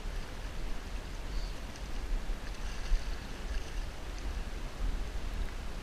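Wind rumbling on the microphone, with faint splashing from a hooked seabass being drawn through the shallows to the bank, and a brief thump about halfway through.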